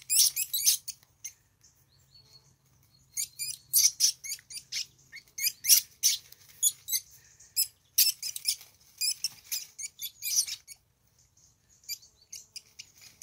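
Least weasels fighting, giving rapid high-pitched squeaks and chittering calls in bursts of a second or two, with short quiet pauses between.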